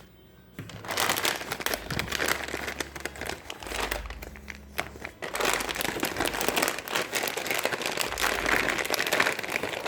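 Plastic packaging crinkling and crackling as it is handled and opened, starting about a second in and going on without a break.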